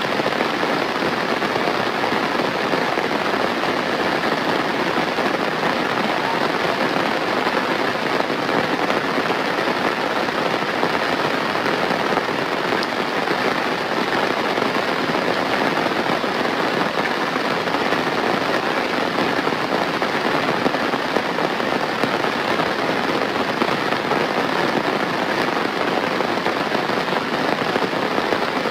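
Steady rain falling, a dense, even patter of drops that does not let up.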